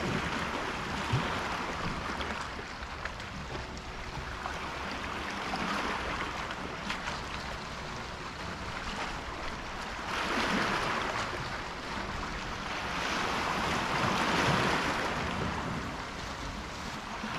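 Small sea waves washing against a rocky shore, the wash swelling louder twice in the second half.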